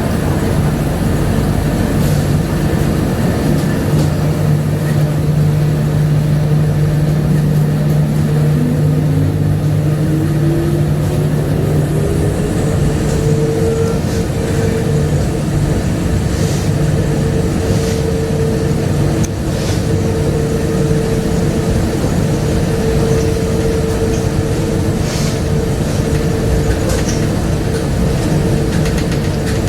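Ride noise aboard a Bombardier APM100 rubber-tyred people-mover train: a steady rumble with a motor whine that rises in pitch for several seconds as the train gathers speed, then holds steady as it cruises.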